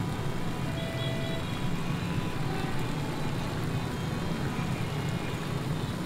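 Steady low rumble of road traffic, with a few short high tones sounding over it now and then.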